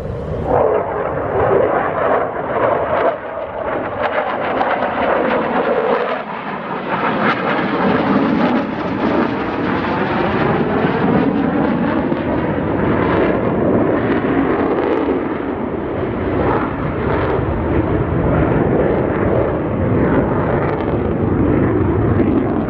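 F-16 Fighting Falcon fighter jet flying overhead in a display. Its jet engine gives a loud, continuous rush whose tone sweeps and shifts as the aircraft moves past.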